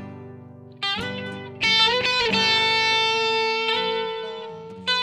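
Guitar music: plucked notes struck a few at a time, each left to ring and die away, with fresh notes about a second in, a louder one a little later, and another near the end.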